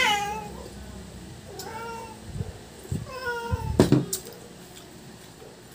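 A domestic cat meowing, three short calls about a second apart. A sharp knock comes just before four seconds in.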